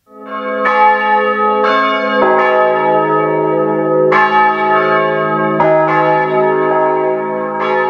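Church bells ringing: several bells of different pitches struck one after another, starting suddenly. A new stroke comes every second or two and each one rings on.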